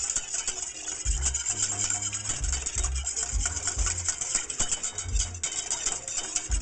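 Wire whisk rattling and scraping fast around a stainless steel saucepan, beating milk into a roux for a cheese sauce. Background music with a bass beat plays underneath.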